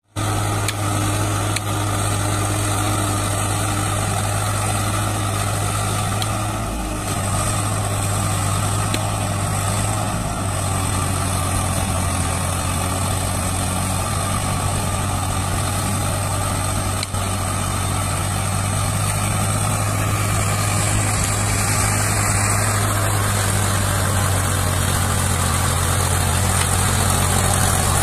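Swaraj 744 FE tractor's three-cylinder diesel engine running steadily while it hauls a loaded straw trolley through deep mud, a little louder in the last several seconds.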